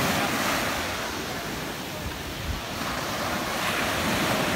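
Small sea waves breaking and washing onto the shore, the wash swelling at the start and again near the end.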